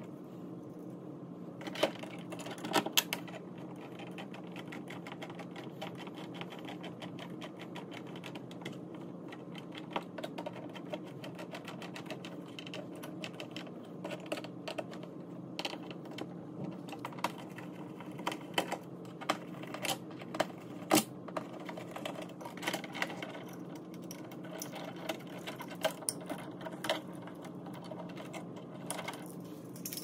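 Irregular light clicks and ticks of a hand screwdriver turning the mounting screws of light switches in a wall box, with metal switch straps being handled, over a steady low hum.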